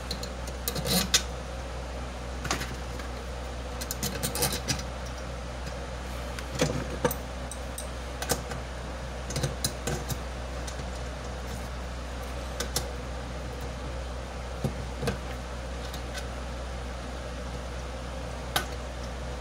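Small metal parts of a blower fan clinking and clicking as they are handled during reassembly: scattered taps, about a dozen, over a steady low hum.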